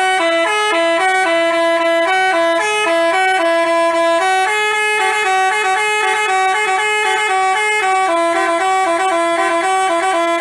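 Basuri telolet bus horn playing a quick melody of steady, stepping tones, two pitches sounding together.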